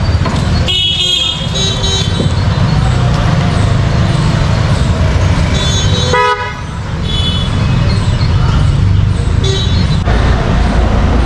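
Street traffic with several short vehicle horn honks, the clearest about a second in and about six seconds in, over a steady low rumble of engines.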